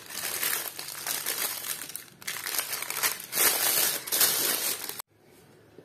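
Thin plastic piping bag crinkling and rustling in uneven bursts as it is filled with whipped cream and squeezed. The sound stops abruptly about five seconds in.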